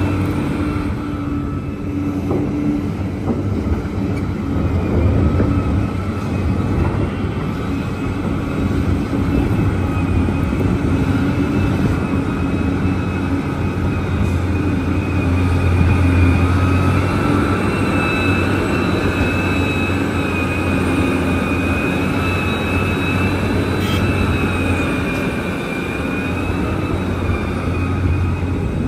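Large Liebherr mining excavator running: a steady, deep diesel drone with a high, slightly wavering whine over it.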